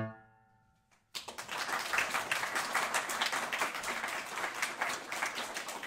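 A grand piano's final chord dies away. After a moment of silence, people applaud with fast, steady clapping.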